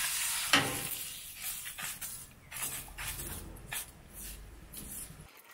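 Beaten eggs sizzling on a hot, oiled stainless-steel griddle plate, the hiss strongest at the start and fading, while a silicone spatula spreads them in a series of short strokes.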